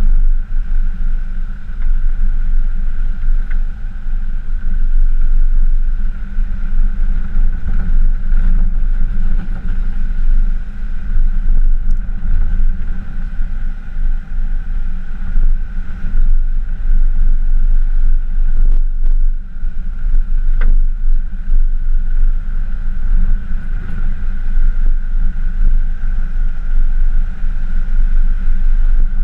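Pickup truck towing an off-road camper trailer along a rough dirt track: a loud, steady low rumble with a steady whine above it, and a few brief knocks about two-thirds of the way through.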